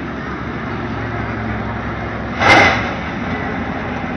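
Race-track ambience: a steady rush of noise with a low engine hum, which fades out about two and a half seconds in, just as a brief loud burst of noise stands out.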